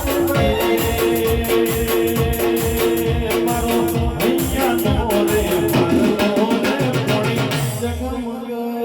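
Instrumental interlude of a live Gujarati devotional folk song: a repeating melodic figure over a steady drum beat with shaker-like percussion. The beat drops out briefly near the end.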